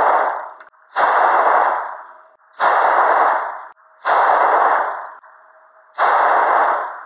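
.357 handgun shots fired at laminate-protected glass from three feet: four shots roughly one and a half to two seconds apart, each trailing off over about a second.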